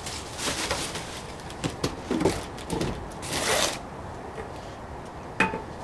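Packaging and the parts of a camp kettle being handled and unpacked: uneven rustling and scraping, with a sharp click near the end.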